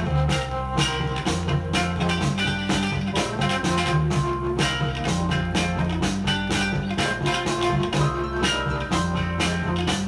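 Northern soul record playing from a 7-inch single on a turntable: a dance track with a steady, repeating beat.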